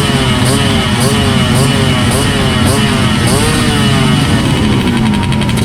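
Vintage trail motorcycle engines revving, their pitch climbing and dropping again and again about twice a second, with more than one engine overlapping.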